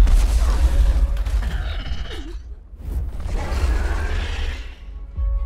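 Film action sound effects: a deep continuous rumble with two swells of rushing noise, and a held music tone coming in near the end.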